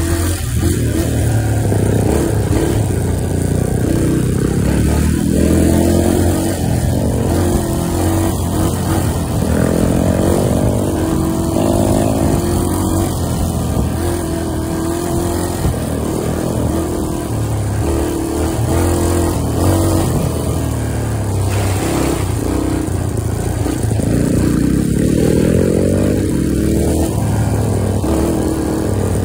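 Engine of the off-road machine carrying the camera, running hard along a rough dirt trail, its pitch rising and falling as it is throttled up and back. The engine note is loud and continuous.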